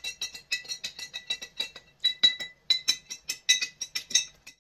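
Metal teaspoon stirring milk in a glass jar, clinking against the glass over and over, several quick clinks a second, each with a short ringing tone.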